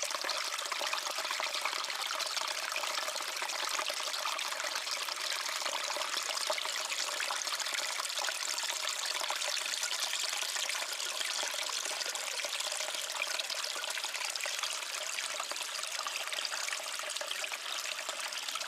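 Steady running water, a continuous trickling rush with no change in level; it cuts off abruptly at the end.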